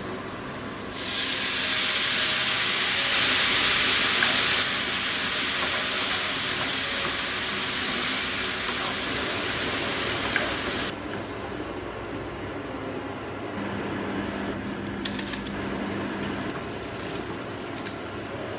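Soy-based stir-fry sauce sizzling loudly in a hot frying pan of peppers and onion, jumping up about a second in as it hits the pan, then settling to a quieter sizzle about eleven seconds in as it cooks down and is stirred, with a few light clicks near the end.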